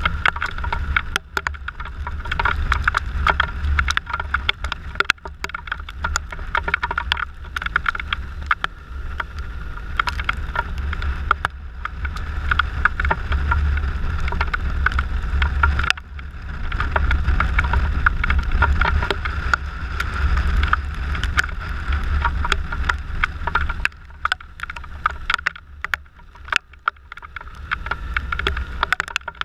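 Wind rushing over the action camera's microphone on a Suzuki Burgman 650 maxi-scooter riding a wet road in rain, with a constant patter of sharp ticks from raindrops hitting the camera. It eases off and gets quieter near the end.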